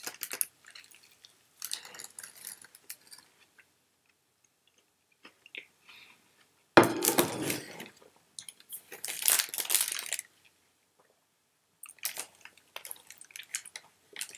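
Chewing and crunching a bite of fish taco, with intermittent rustling of the paper wrapper in the hand. The noises come in separate bursts with quiet gaps between them, and the loudest comes about seven seconds in.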